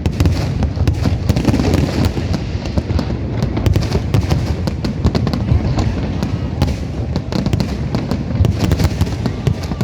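Many fireworks going off at once: a dense, unbroken run of sharp bangs and crackles over a steady low rumble.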